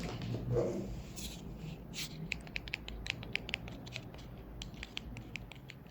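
Faint handling noise: a quick, irregular run of light clicks and scratchy taps, over a low steady hum.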